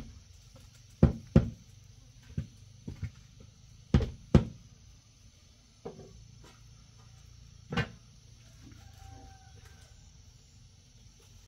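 A series of about nine irregular sharp knocks. The loudest come in two quick pairs, about a second and about four seconds in, and the last is a single knock near the eight-second mark.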